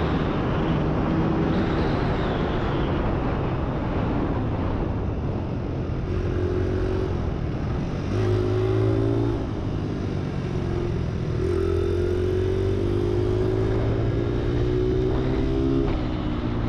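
Dirt bike engine running while riding, its note coming and going with the throttle and climbing slowly over several seconds in the second half before easing off, under a steady rush of noise.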